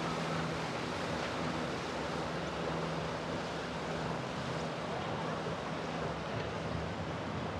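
Small motor launch running past with a steady low engine hum, and the wash of its wake on the water.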